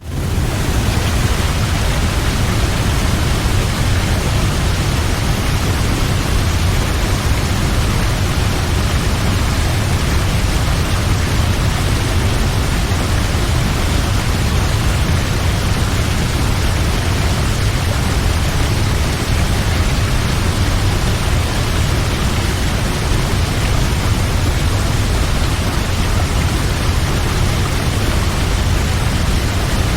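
Waterfall: a steady, dense rush of falling water with a deep low rumble, fading in at the very start.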